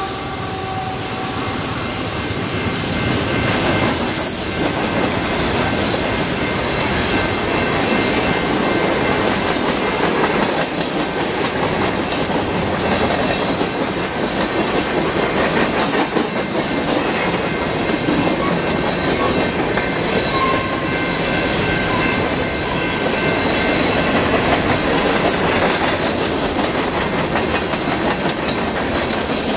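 Freight cars of a passing train rolling by at close range: a steady rumble and clatter of steel wheels on the rails, with a thin, high wheel squeal running underneath. A short hiss comes about four seconds in.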